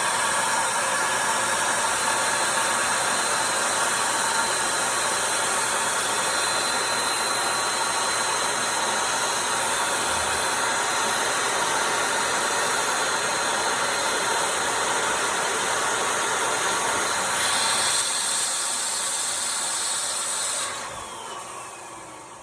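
Electric balloon pump running steadily, blowing air into a large balloon to pre-stretch it. The sound changes about eighteen seconds in, then the pump is switched off and its motor winds down with a falling whine.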